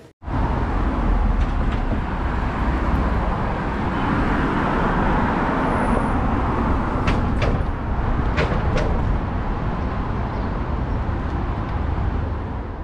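Roadside traffic noise: a steady rumble with a few sharp clicks about two-thirds of the way in, fading out at the very end.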